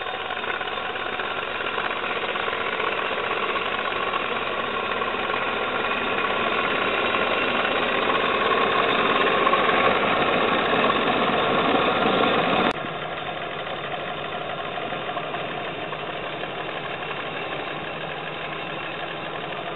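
Tractor engine running hard, its level building over the first dozen seconds. About two-thirds of the way through it cuts abruptly to a quieter, steadier engine run.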